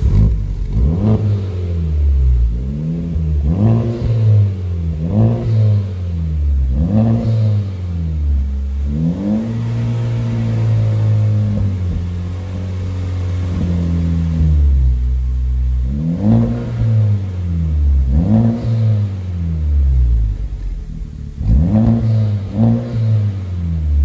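Honda Civic Type R FK8's 2.0-litre turbocharged four-cylinder breathing through an MXP Comp RS exhaust, free-revved in a string of quick blips. About nine seconds in it is held at a steady higher rpm for several seconds, then blipped again. The exhaust note is deep and not too raspy.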